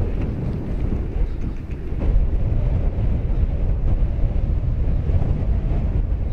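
Low rumbling wind buffeting the microphone, getting louder about two seconds in.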